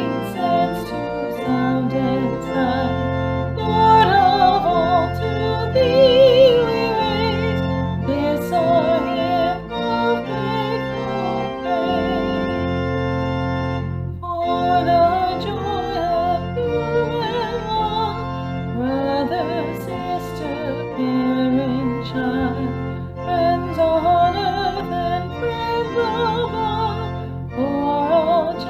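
A classically trained singer with wide vibrato sings over sustained organ accompaniment. The music breaks off briefly about halfway through, then carries on.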